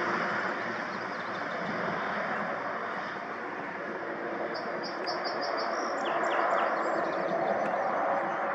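Twin-engine piston propeller airplane at takeoff power, its engines and propellers droning steadily as it lifts off and climbs away. A bird chirps rapidly several times about halfway through.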